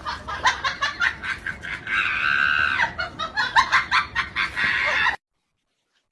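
A high-pitched voice shrieking in quick repeated bursts, with one long held shriek about two seconds in; it cuts off abruptly about five seconds in.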